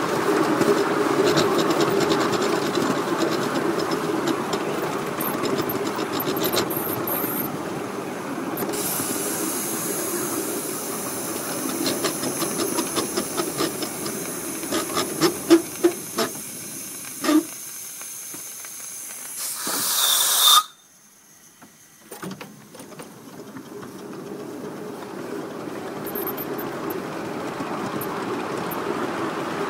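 5-inch gauge live-steam model of the Dholpur locomotive running along its track: a steady rushing running noise, with a high steam hiss and a run of sharp clicks in the middle. About twenty seconds in the sound cuts off sharply, then gradually builds back.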